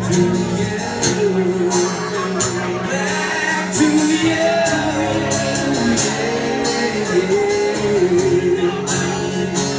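Live acoustic music: a man sings long, wavering notes without clear words over a strummed acoustic guitar.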